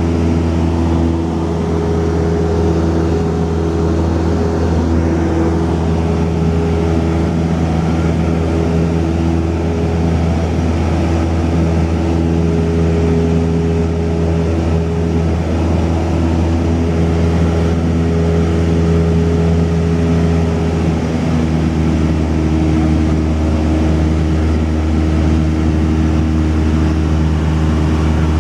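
Cessna 172's piston engine and propeller droning steadily at constant power, heard from inside the cabin: an even low hum with a few steady tones above it.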